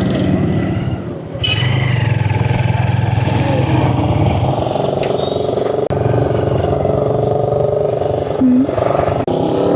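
Motorcycle engine running steadily, with a short dip about a second in. A brief pitched tone sounds about eight and a half seconds in, the loudest moment.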